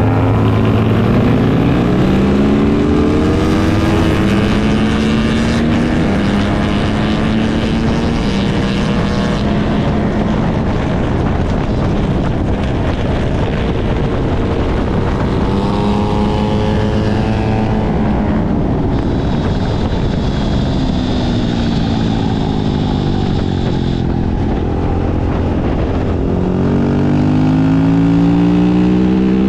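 Racing motorcycle engine heard from an onboard camera, accelerating with a climbing pitch that breaks at each upshift, holding steady at speed, then dropping in pitch as it slows and climbing again near the end. Heavy wind rush runs under the engine throughout.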